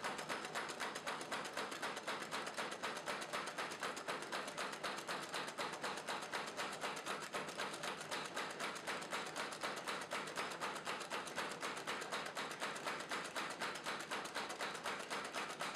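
Homemade wooden beam power hammer running, its head striking in a rapid, even rhythm of blows.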